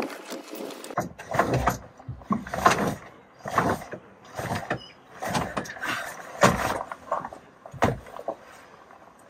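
An Allen key working the seat-mounting bolts of a Land Rover Defender 90 while the seat is handled: a series of rough scrapes and knocks, about one a second.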